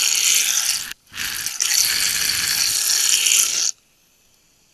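Tap water pouring in a stream into a kitchen sink full of soap foam: a steady splashing hiss that breaks off for a moment about a second in and stops abruptly near the end.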